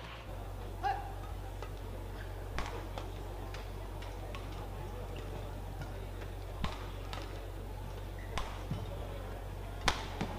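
Sports hall ambience with crowd murmur and a few scattered sharp knocks between points. Near the end a rally starts: badminton rackets striking the shuttlecock, a few crisp hits in quick succession.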